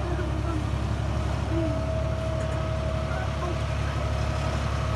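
New Holland compact tractor's diesel engine running steadily as it tows a hayride wagon along a dirt track, a continuous low drone.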